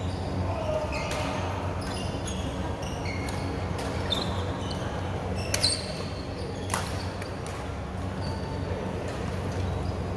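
Badminton play: sharp pops of racket strings striking the shuttlecock, a few times, the loudest a little past halfway, with rubber-soled shoes squeaking on the vinyl court mat. A steady low hum runs underneath.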